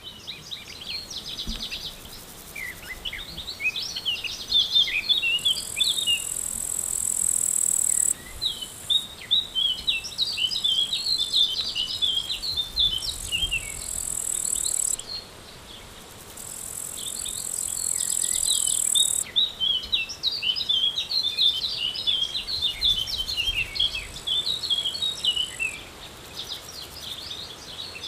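A songbird singing long runs of quick, varied chirps. Three times, a high insect buzz swells over two or three seconds and then cuts off abruptly.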